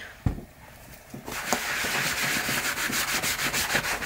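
A sponge scrubbing foaming liquid cleaner over a leather riding boot: a steady rubbing that starts a little over a second in, after a light knock.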